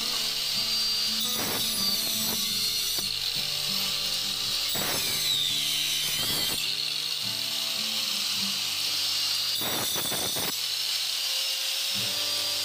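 Doliz BA730 angle grinder with a wood-cutting blade running and biting into a thick solid-wood plank, its whine shifting in pitch as it is pressed into the cut and eased off. The blade keeps spinning under the deliberate heavy pressure, a sign of a strong motor. Background music plays underneath.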